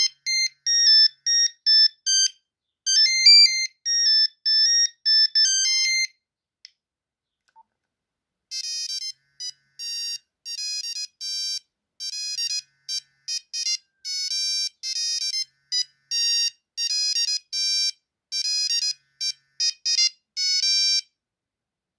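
Nokia 3310 monophonic ringtones playing as thin, high beeping melodies. One tune ends about six seconds in. After a short pause, a second, quieter tune of short staccato notes plays until near the end.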